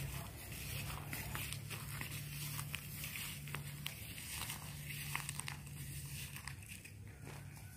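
Faint crackling, rustling noises over a low steady hum that drops out briefly twice.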